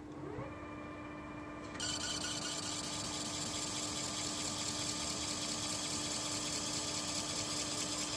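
Metal lathe spindle spinning up with a rising whine that settles into a steady running tone over a constant hum. About two seconds in, a boring bar starts cutting inside the bore of a spinning metal ring, a steady hiss that is the loudest sound.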